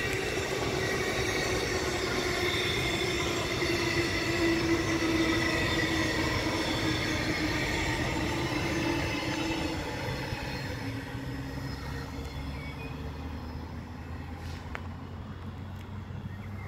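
Electric suburban train passing along the track: a steady whine over the noise of wheels on rail, slowly falling in pitch, then fading after about ten seconds.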